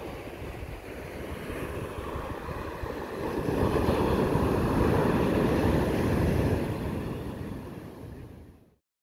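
Ocean surf breaking and washing up a sandy beach, with wind on the microphone. A wave swells loudest about four to six seconds in, then the sound fades out near the end.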